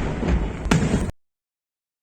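Fireworks salute going off: a continuous rumble of bursts with a sharp bang about two thirds of a second in, then the sound cuts off abruptly about a second in.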